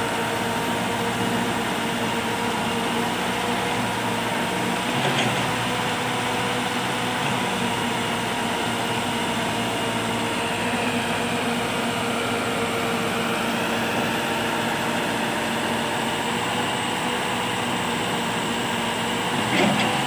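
Massey Ferguson 375 tractor's diesel engine running steadily while it drives a tractor-mounted backhoe digging soil. A higher tone sags and recovers around the middle, and there is a brief louder knock near the end.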